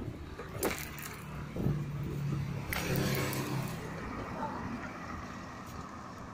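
Street traffic: a car engine hum rises and passes, swelling about three seconds in and then fading, with a few sharp clicks near the start.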